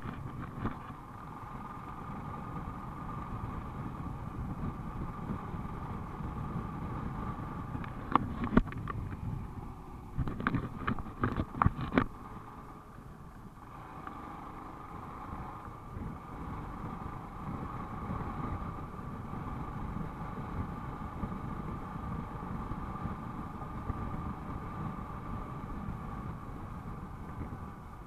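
Motorcycle running at road speed, heard from the rider's position as a steady engine drone mixed with wind rush. A cluster of sharp knocks comes between about 8 and 12 seconds in.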